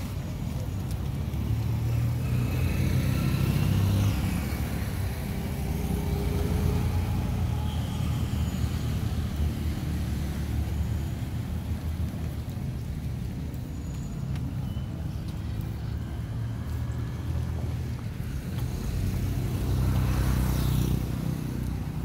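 Roadside traffic noise: a steady low rumble of vehicles, with one vehicle passing close near the end.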